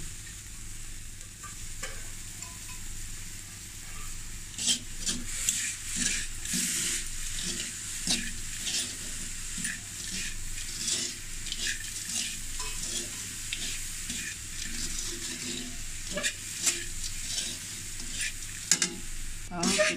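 A perforated metal spoon stirs and scrapes a crumbly peanut, coconut and Milo sugar mixture around a steel wok, making frequent scraping and clinking strokes from about four seconds in. Under it runs a steady frying sizzle as sweetened condensed milk is poured onto the hot wok and cooks.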